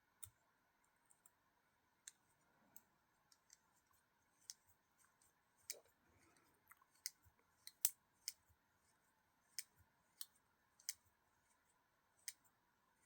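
Faint, scattered small clicks of tiny screws and metal knife parts being handled while a folding knife is put back together, the loudest about eight seconds in.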